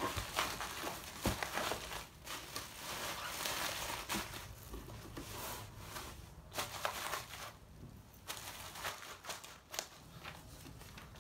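Clutch kit packaging being handled: irregular rustling and crinkling with a few light knocks, quieter in the second half.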